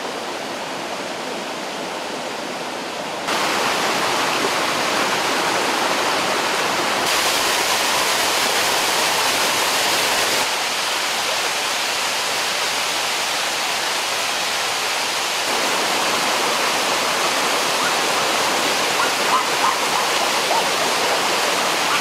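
Waterfalls pouring over rocks into a stream: a steady, dense rush of falling water that abruptly changes in loudness and tone several times.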